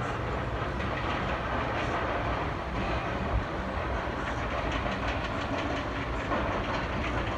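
A train rolling along its track, a steady rumble with rhythmic clacking.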